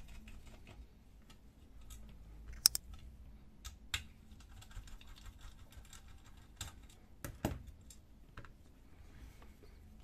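Small irregular clicks and taps of a screwdriver working out the two screws that hold the metal bracket on a Lexmark laser printer fuser, with a few sharper clicks of metal and plastic parts along the way.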